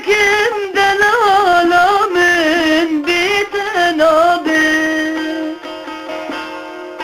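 Song in a Middle Eastern style: an ornamented, wavering melody line for about the first four and a half seconds, then held, steady notes.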